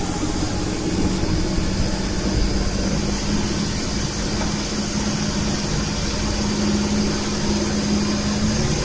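Engine of a dragon-prowed tour boat running steadily under way, a constant low hum under an even rushing noise, heard aboard.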